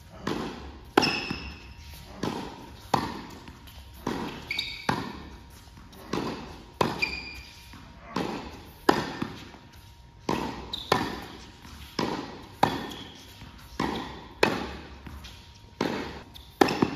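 Tennis ball struck back and forth by rackets in a fast volley rally, about one hit a second, each hit echoing in a large indoor tennis hall. Short high squeaks, from shoes on the court, come between some of the hits.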